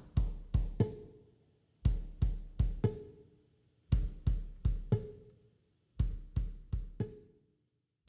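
Background music: a drum beat in groups of four hits with a deep bass drum, each group repeating about every two seconds.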